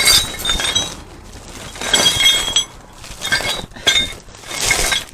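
Loose steel gearbox parts clinking and rattling against each other in several separate bursts, each with a bright metallic ring.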